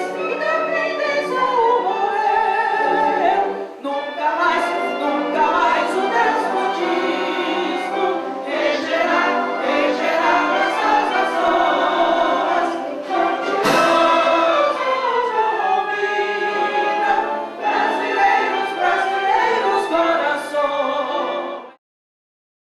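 Music with several voices singing, choir-like, that cuts off abruptly near the end.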